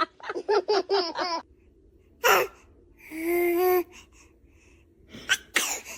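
A person laughing in quick bursts, then a newborn baby's short sharp sneezes and gasps: a sudden burst about two seconds in, a longer voiced one near the middle, and another pair of bursts near the end.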